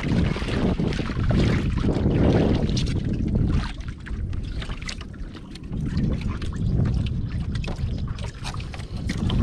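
Wind buffeting the microphone over water lapping against a small wooden outrigger canoe, with scattered small knocks and splashes as a halfbeak is pulled from the water.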